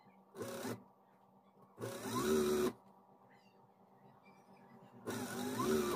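Electric sewing machine stitching lace onto fabric in three short runs, its whine rising in pitch as each run speeds up, with a faint steady hum between runs.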